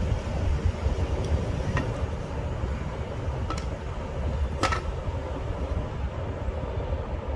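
Hot glue gun and plastic drip tray handled on a table: a few light clicks and taps, the loudest about four and a half seconds in, over a steady low rumble of background noise.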